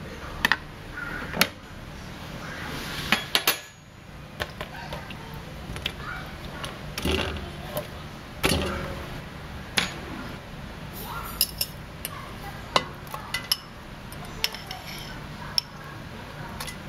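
Kitchen prep: a knife tapping and cutting on a plastic cutting board, then chunks of pork rib and winter melon set into a stainless steel pot, giving scattered irregular knocks and clinks.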